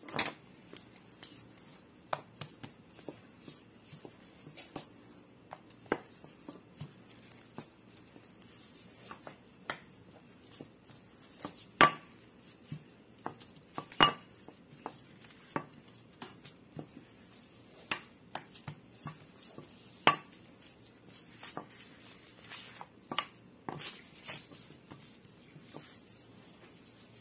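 Irregular knocks and taps of a wooden rolling pin and hands working bread dough on a silicone mat over a table, with two louder knocks around the middle.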